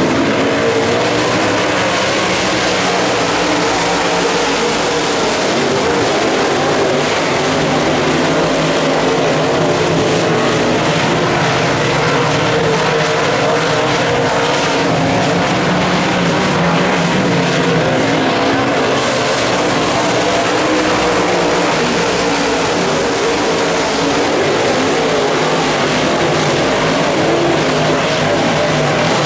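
Several dirt late model race cars' V8 engines running at racing speed around the oval, making a steady, loud drone of overlapping engine notes.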